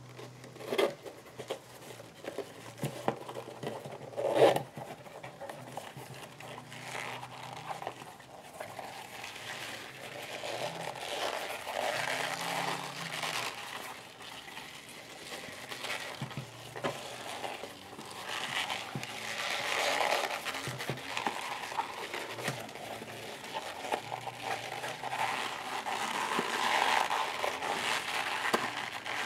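Leather creasing, rustling and scraping as a sewn leather bag is worked right side out by hand, with two knocks in the first few seconds. The handling grows busier and louder from about ten seconds in.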